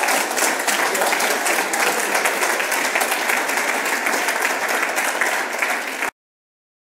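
Audience applauding, the clapping cut off abruptly about six seconds in.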